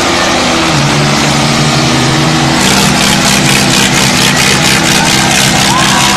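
Diesel tractor engines labouring under heavy load in a tractor tug-of-war, a New Holland and a Mahindra Arjun pulling against each other on a chain. The engine note dips about a second in, then turns louder and harsher, with rapid pulsing, from about two and a half seconds in.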